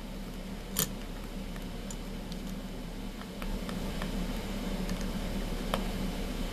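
Small clicks and taps as a pencil marks screw holes through an aluminium bracket held on a fiberboard base, with one sharper click about a second in, over a steady low room hum.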